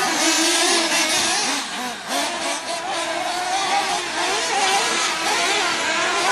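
A pack of nitro-powered 1/8-scale RC truggy engines buzzing and revving together, pitches rising and falling as the field races off the start.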